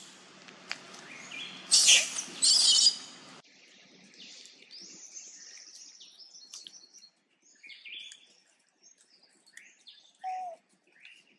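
A baby long-tailed macaque gives two loud, shrill cries about two seconds in. After that, scattered faint bird chirps are heard.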